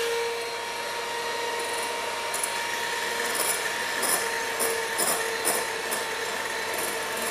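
Electric hand mixer running steadily in a glass bowl, a constant motor whine, with a few light clicks around the middle.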